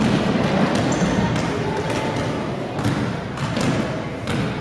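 Basketball game sounds on a hardwood gym floor: scattered knocks of a ball bouncing and feet on the court, over a steady background of indistinct spectators' and players' voices.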